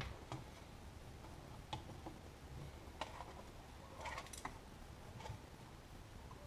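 Scattered light clicks and taps of an opened plastic mirror dash-cam housing and its wires being handled, with a quick cluster of clicks about four seconds in.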